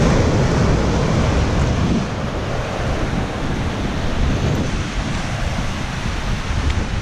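Wind buffeting the microphone over the steady wash of ocean surf, a little louder in the first two seconds.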